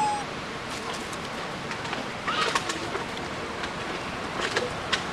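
A short, clear animal call right at the start, then a few faint chirps and clicks over a steady outdoor hiss.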